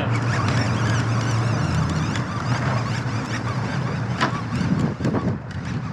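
A steady low motor drone with wind rushing over the microphone, and a few sharp knocks about four to five seconds in.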